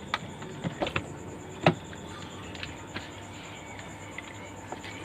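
A few scattered clicks and knocks, the loudest a little under two seconds in.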